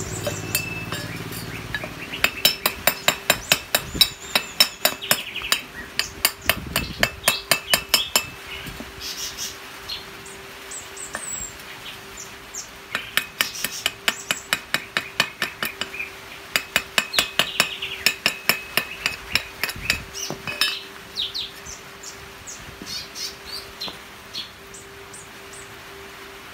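A welding chipping hammer strikes the weld bead on a thin round steel pipe corner joint, knocking off slag. It gives sharp metallic clinks in fast runs of about three or four strikes a second, with pauses between runs and sparser taps near the end.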